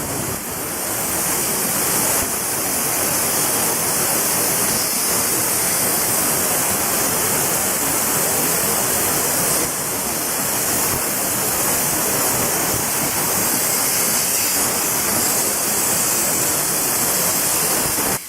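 CNC plasma cutter's 100 A torch cutting metal: a loud, steady hiss of the plasma arc and its gas jet.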